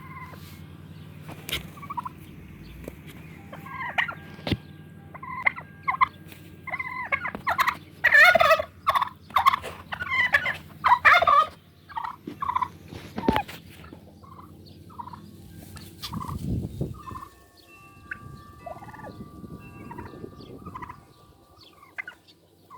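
Bantam rooster making a string of short clucking calls, with a louder run of harsh squawks about eight to eleven seconds in. A steady low hum runs underneath until about sixteen seconds in.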